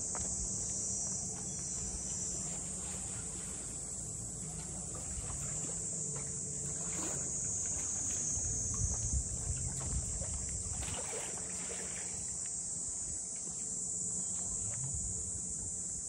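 Chorus of cicadas buzzing in a steady, high, even drone, with a low rumble underneath that swells for a couple of seconds midway.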